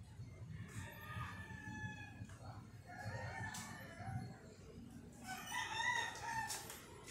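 A rooster crowing three times in a row, each crow lasting a second or so, over a low steady background hum.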